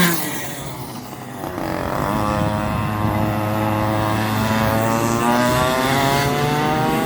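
Go-kart engine easing off briefly, then accelerating with a steadily rising buzz as it picks up speed.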